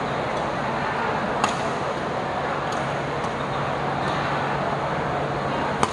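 Badminton rackets striking the shuttlecock during a rally: a sharp crack about a second and a half in and another near the end, with fainter hits between. Under them runs a steady rush of heavy rain, which makes the hall noisy.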